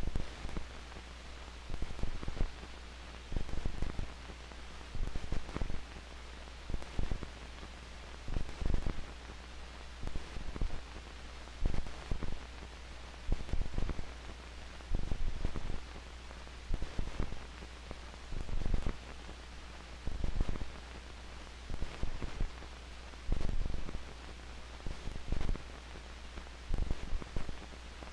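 Bare feet slapping down on a wooden floor in a slow, uneven rhythm, about one step every second or two. This is the high-stepping, foot-slapping ataxic gait of posterior column disease, with loss of joint position sense. Under the steps run a steady low hum and hiss from an old optical film soundtrack.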